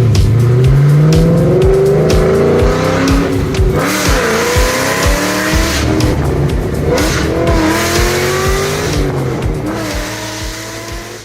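Exhaust of a 2003 Mustang SVT Cobra's supercharged 4.6-litre V8, fitted with a Kenne Bell 2.6L supercharger, long-tube headers and a 3-inch X-pipe, revving with the pitch rising and falling repeatedly. It fades out near the end.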